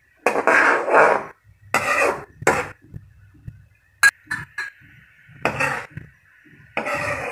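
Metal ladle scraping and stirring against a wok of simmering sauce in short bursts, with a few quick sharp taps about four seconds in. A faint steady high hum runs underneath.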